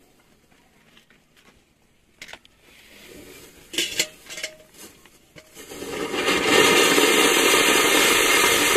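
Anar (flower pot) fountain firework catching: a few sharp pops and crackles, then from about six seconds a loud steady hiss as it sprays its fountain of sparks.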